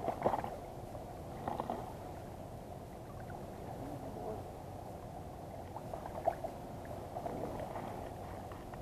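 Water lapping and splashing beside a float tube as a hand works at the surface, with a few sharper splashes: one just after the start, one at about a second and a half, and one a little past six seconds.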